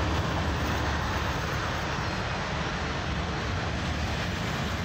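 Union Pacific passenger train cars rolling past close by at speed, a steady noise of steel wheels on the rails.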